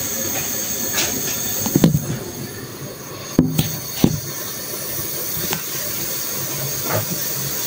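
Steady hissing sizzle of food frying in a wok over a gas flame, with a few sharp knocks of kitchenware being set down on the counter, the clearest a little over three and four seconds in.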